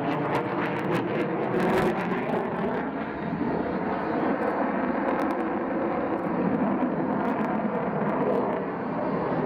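Lockheed Martin F-22 Raptor's twin Pratt & Whitney F119 jet engines heard steadily as the fighter flies overhead, with a few sharp clicks in the first two seconds.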